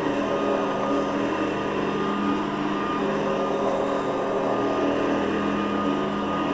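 Hoover Guardsman upright vacuum running steadily on a rug, a constant motor hum with the noise of its brush roll, which the owner puts down to the roll's plastic bushings being new.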